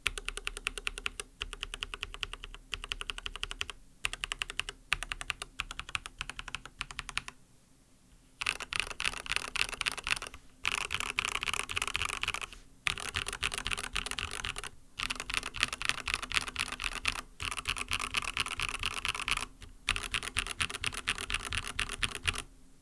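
Mechanical keyboard with lubed 45 g MMD Coral switches and a silicone plate foam being typed on. First come short runs of repeated keystrokes with brief pauses. After a gap about 8 seconds in, there are longer bursts of fast, dense keystrokes, louder than the runs before them.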